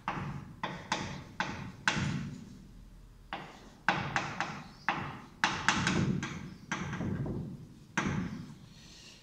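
Chalk striking and scraping on a blackboard as lines are drawn: a run of sharp strokes, some in quick succession, with a short pause about three seconds in.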